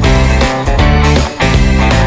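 Background music with guitar and bass and a steady beat.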